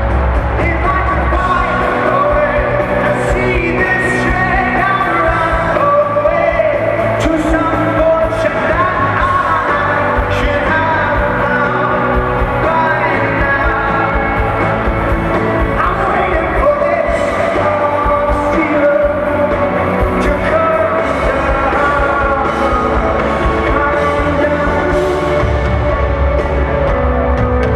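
Live rock band playing with a lead singer's vocals over it, loud and steady.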